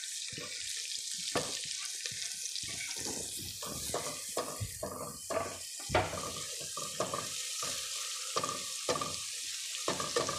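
Chopped coriander and garlic sizzling in hot oil in a pot, a steady hiss, with the repeated clicks and scrapes of a spatula stirring them against the pan.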